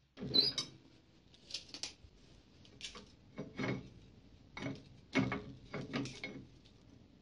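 About ten irregular clicks and knocks of hand work at a table saw: a steel tape measure and the saw's rip fence being handled and set against the blade.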